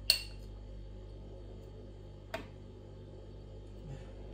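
Metal fork clinking against a glass jar while pickled jalapeños are fished out: a sharp clink at the start and a smaller one about two seconds later, over a steady low hum.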